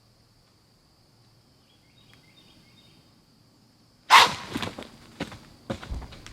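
Quiet woods with a faint steady high insect drone and a few soft chirps, then about four seconds in a sudden loud crunch and rustle followed by irregular crunching steps in dry leaves.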